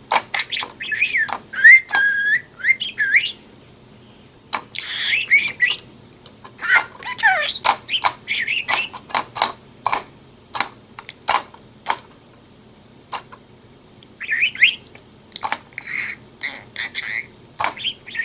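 Budgerigar chattering and warbling, with whistled notes gliding up and down between sharp clicks, in several bursts with short pauses.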